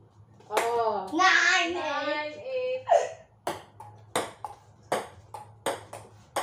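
A child's voice calls out, drawn out for about two seconds near the start. Then a ping pong ball clicks sharply off a paddle and hard surfaces, several quick taps a second through the second half.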